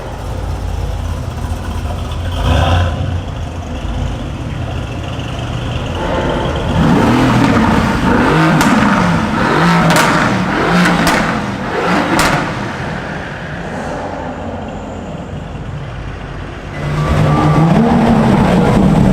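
A performance car engine revved hard in a series of short blips, its pitch rising and falling again and again, with several sharp cracks among the revs. Another rev rises near the end.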